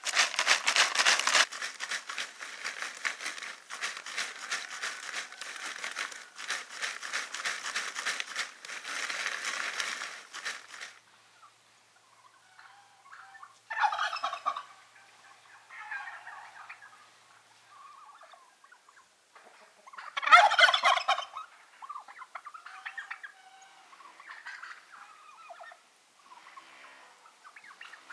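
Chestnuts rattling and rustling in a plastic crate as it is tipped and shaken, loudest in the first second or two and going on for about ten seconds. After a short pause, a tom turkey gobbles several times, the loudest gobble about twenty seconds in.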